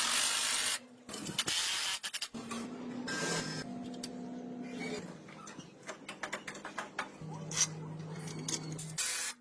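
Workshop work sounds: two loud hissing bursts near the start, a small motor humming in stretches that start and stop abruptly, and scattered sharp clicks and taps.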